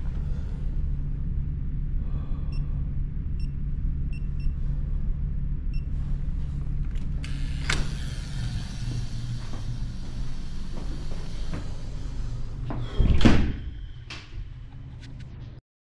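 Truck engine idling with a steady low rumble, with a few faint short beeps in the first half. A hiss joins about halfway through, and near the end a louder whoosh rises and falls.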